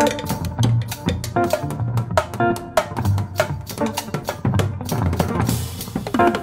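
Small jazz band playing, with the drum kit to the fore: busy kick, snare and rimshot strokes under short electric guitar notes, and a cymbal crash about five seconds in.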